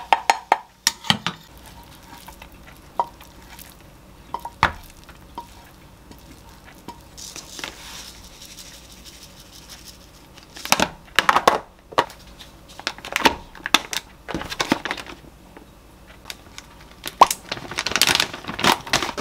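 A wooden spatula scrapes and taps a frying pan as fried rice is pushed out of it. About ten seconds in, a hand sesame grinder is twisted over the food in short rasping bursts. Near the end, frozen mango chunks clatter into a plastic blender bottle.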